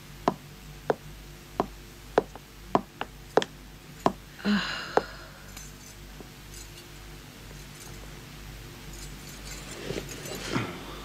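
Hard-soled footsteps clicking on a hard floor, about nine steps over the first five seconds, with a brief clink about four and a half seconds in.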